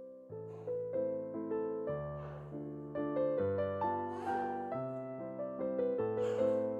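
Background piano music: a melody of changing notes over held low notes, with a short hiss-like accent about every two seconds.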